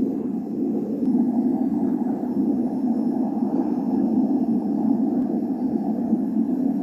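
Gas burner of a homemade melting furnace firing steadily: a loud, even rushing roar heating a crucible of scrap aluminium.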